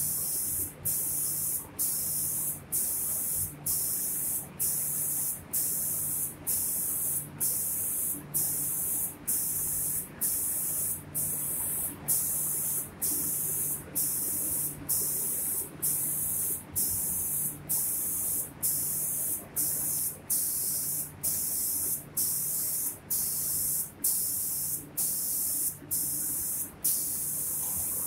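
Spray gun of a CNC five-axis painting machine hissing as it sprays door panels. The spray cuts off briefly at a steady pace, roughly every two-thirds of a second, over a low machine hum.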